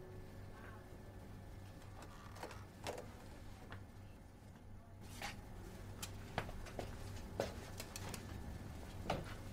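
Faint low hum with scattered short clicks and knocks, more frequent in the second half; no music.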